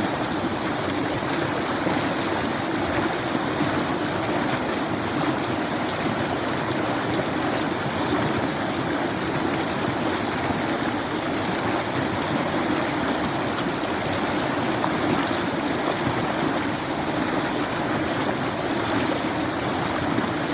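Water running and splashing steadily, with no breaks or changes.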